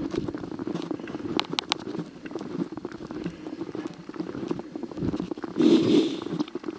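Footsteps crunching steadily through fresh snow. There are a few sharp squeaks about one and a half seconds in, and a louder rustle near the end.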